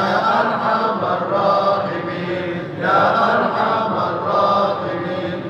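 A congregation of men chanting together in unison in long melodic phrases, a fresh phrase starting about three seconds in.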